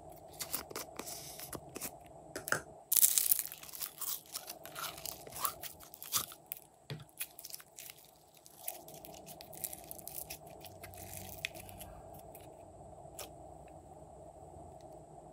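Glossy slime and its plastic squeeze container being handled, with a run of sticky crackles, clicks and pops and a loud crackling cluster about three seconds in. The crackling stops after about twelve seconds, leaving a faint steady hum.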